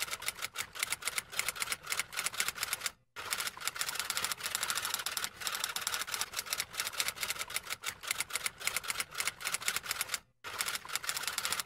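Typewriter sound effect: a rapid run of key clicks as text is typed out, broken by two short silences, about three seconds in and near the end.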